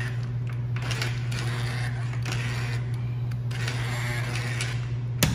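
Hammer drill running continuously with a socket on a car lift's anchor bolt, a steady mechanical whir with a fast rattle from the hammer action.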